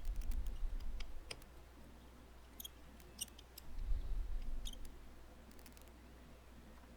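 Small hand tools and tiny phone screws being handled on a workbench: light scattered clicks, a few short high metallic pings around the middle, and low handling bumps near the start and again about four seconds in.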